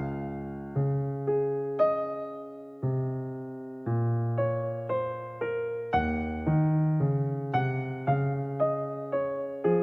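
Background music: slow, gentle electric piano notes and chords, each struck and fading.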